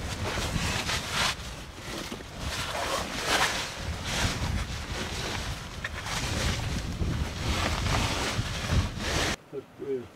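Wind buffeting the microphone in gusts: a rough, rumbling rush that swells and eases, cutting off abruptly near the end.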